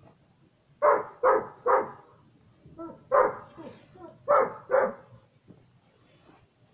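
A dog barking, about seven short barks in three quick runs.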